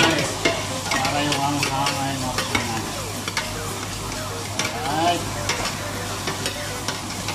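A metal ladle stirring and scraping onions, tomatoes and green chilies frying in oil in a metal stockpot: a steady sizzle with frequent clinks and scrapes of the ladle against the pot.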